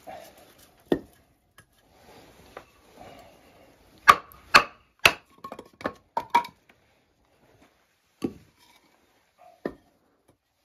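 Batoning with a large fixed-blade knife, the Worktuff Gear Grizzly: a wooden baton knocks on the blade's spine to drive it through a piece of firewood. There are about nine sharp wooden knocks, the loudest coming quickly one after another in the middle.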